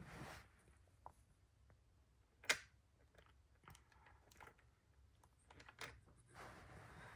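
Near silence broken by a few faint clicks and taps, with one sharper tap about two and a half seconds in.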